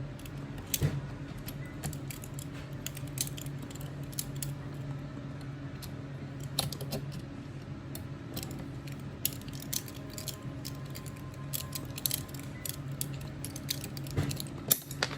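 Light metallic clicks and rattles of a screwdriver and small screws as the screws of a crossbow's Picatinny rail are loosened, scattered irregularly over a low steady hum.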